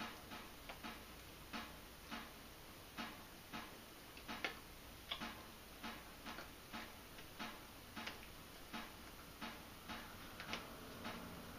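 Clock ticking steadily, about two ticks a second.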